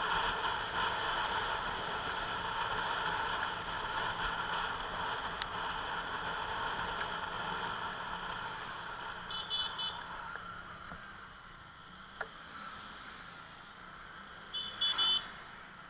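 Road and vehicle noise, a steady rush that fades after about ten seconds, with two short runs of high-pitched beeps, one near the middle and one near the end.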